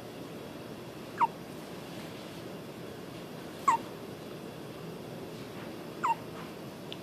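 Hiccups: three short, high-pitched hics about two and a half seconds apart, each quickly falling in pitch, over a steady low hiss.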